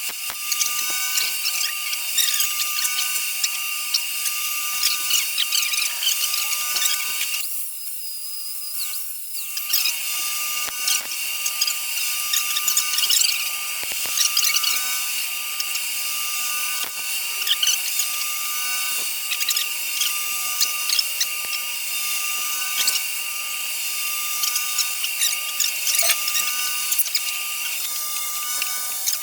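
Wire-feed welder arc crackling and sizzling steadily while a bead is laid, with a steady whine underneath. It stops for a moment about 8 seconds in, then starts again.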